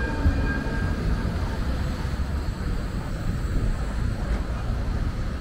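Wind buffeting the microphone, a heavy low rumble throughout. Under it, a passing tram's running sound with a faint whine fades away over the first second or so.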